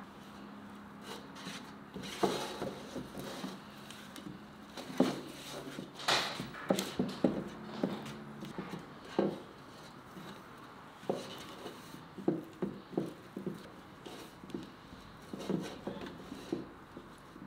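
Baking pan being greased by hand: fingers rubbing fat around the pan, with irregular light knocks and clicks as the pan is handled and shifted on a wooden table.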